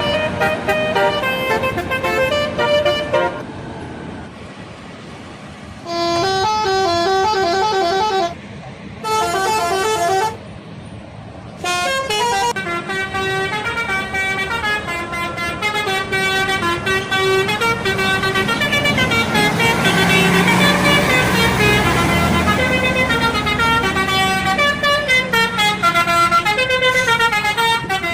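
Bus telolet horns, the multi-trumpet melody horns of Indonesian buses, playing jingly tunes of stepping notes. They come in several bursts with short gaps of engine and road noise between them, then play on without a break for the last half.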